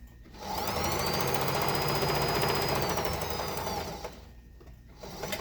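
Electric sewing machine running a straight stitch down a zipper seam. Its motor whine rises as it speeds up about half a second in, holds steady, then falls as it slows and stops about four seconds in.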